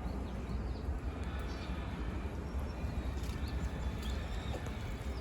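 Steady low rumble of outdoor background noise, with a few faint high chirps and ticks about three to four seconds in.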